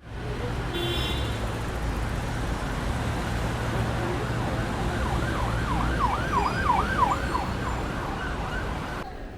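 A siren sounding in fast rising-and-falling sweeps, about three a second, for a few seconds around the middle, over a steady low hum. The hum cuts off sharply near the end.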